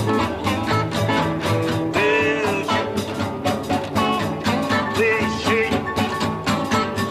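A blues band playing an up-tempo number, with guitars and piano over a steady beat.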